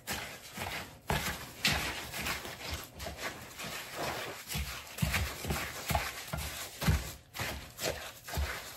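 A spoon stirring snow cream (snow with milk, sugar and vanilla) in an orange plastic mixing bowl: wet, crunchy scraping with repeated, uneven soft knocks of the spoon against the bowl.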